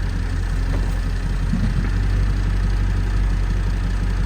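Ford Excursion's engine running steadily in four-wheel-drive low, under load as it pulls a tractor out by a chain.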